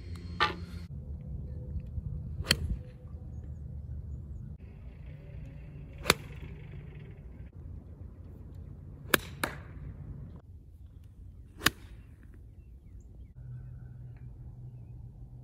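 Golf clubs striking golf balls: six sharp clicks, from a short putter tap to full iron and pitch shots, two of them in quick succession about nine seconds in.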